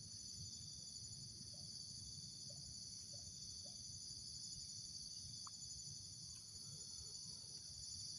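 Steady chorus of insects buzzing continuously at a high pitch, with a few faint short chirps in the first half.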